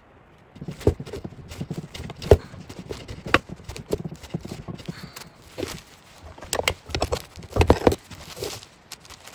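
Irregular hard knocks and clacks, a busier run of them toward the end.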